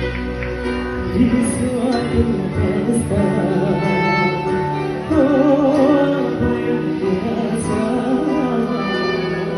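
Live band music: an instrumental passage with a wavering, vibrato melody line over a steady beat.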